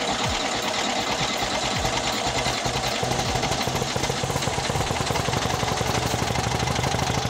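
Air-cooled VW Beetle flat-four engine running rough and uneven while the distributor is turned by hand to set the initial timing. It settles into a steadier beat about three seconds in.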